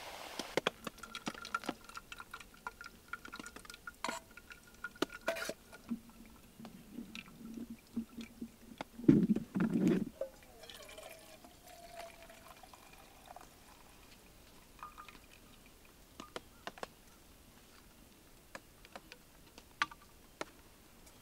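Liquid pouring and dripping amid scattered small clicks and knocks of handling, with two louder knocks about nine seconds in.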